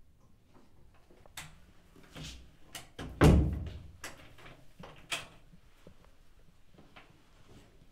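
Bedroom door handle clicking, then the door shutting with a heavy thud about three seconds in, followed by a sharp click and fainter clicks as the door is locked.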